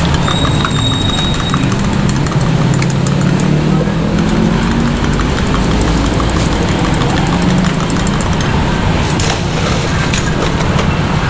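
A motor running steadily with a low, slightly wavering hum, over light clicks and taps.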